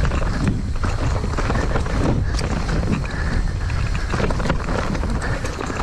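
Downhill mountain bike being ridden on a dirt trail: wind rushing over the microphone, tyres rumbling on the ground and frequent knocks and rattles from the bike over bumps.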